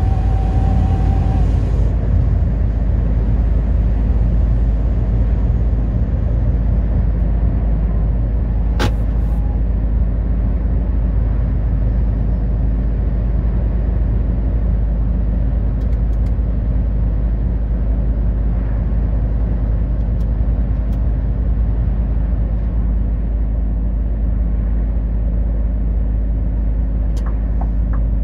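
Vehicle driving at steady highway speed: a constant low drone of engine and road noise with a steady hum. A single sharp click about nine seconds in.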